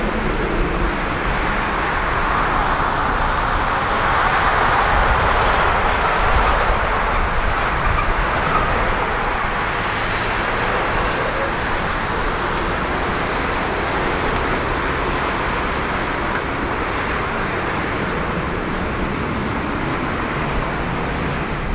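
Boeing 737-800's CFM56-7B turbofan engines running at idle thrust as the jet taxis and turns onto the runway: a steady jet rumble and hiss, slightly louder about four to seven seconds in.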